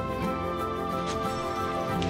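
Soft background music with held, layered notes.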